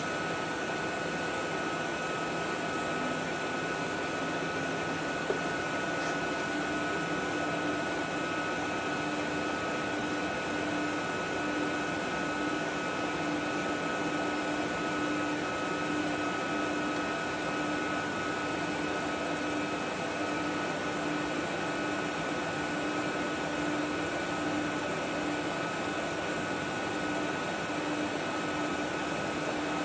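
Steady mechanical drone with a few constant whining tones over an even rushing noise, like a large fan or blower running.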